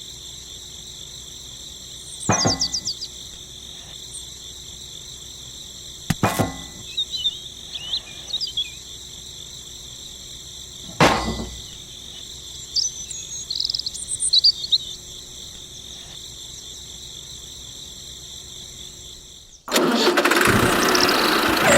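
Insects chirping in a steady high-pitched trill, with a few sharp clicks and short chirps over it. Near the end a loud rushing noise starts suddenly.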